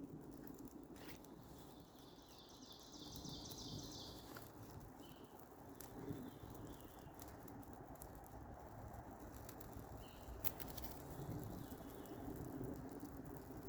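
Quiet outdoor ambience with a brief high chirping trill a few seconds in, two shorter chirps later, and a few scattered faint ticks.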